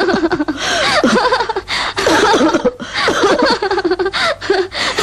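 Women laughing heartily in repeated loud bursts, with gasps for breath in between.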